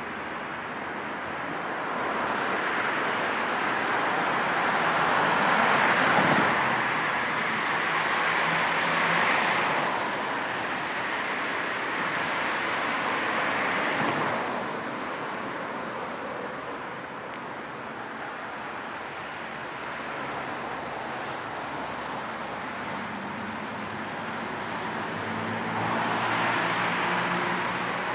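Road traffic: a steady wash of tyre and engine noise with several vehicles passing close. The loudest pass comes about six seconds in, with others around nine and fourteen seconds and near the end.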